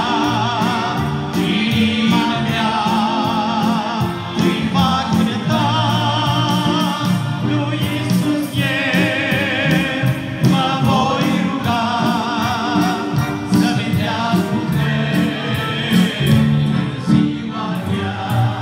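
A Romanian worship song: singing with a wide vibrato over instrumental accompaniment with a steady beat.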